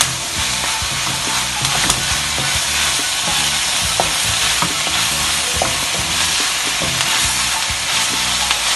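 Smoked herring and onions sizzling in a wok while a wooden spatula stirs them, scraping and clicking against the metal pan.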